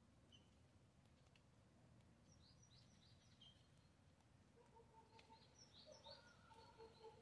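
Near silence with faint bird chirping: a few short, high chirps about two to three seconds in, and more from about four and a half seconds on, joined by a repeated lower note near the end.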